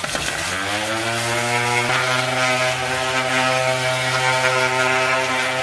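Ridgid angle grinder spinning up and then running at a steady high whine, its abrasive disc resurfacing the face of a clutch flywheel in place on the engine.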